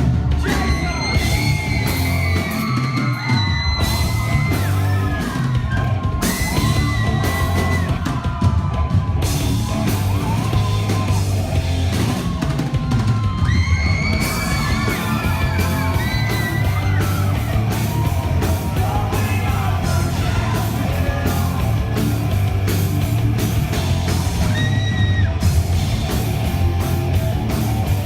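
Live rock band playing loudly, with a singer yelling and singing over the band and holding several long high notes.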